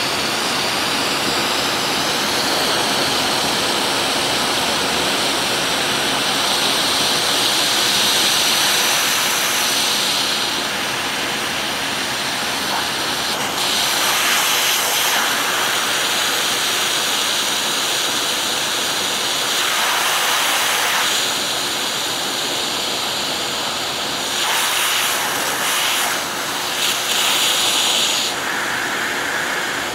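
Vacuum cleaner running steadily with a loud rushing hiss that grows brighter and fades again several times.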